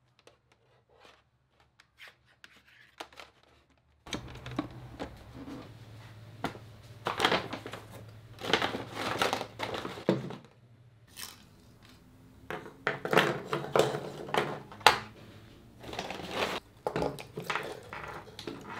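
Paper shopping bag rustling and crinkling in bursts as things are lifted out of it, with a few light knocks of objects set down on a wooden tabletop. The first few seconds are almost quiet, with only soft clicks.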